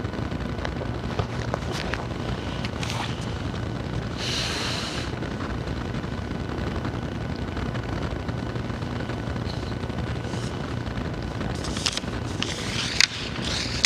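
Steady low rumble of background noise with objects being handled on an altar: a brief papery rustle about four seconds in, then a few light knocks and clicks near the end as books and a chalice are set down on the altar.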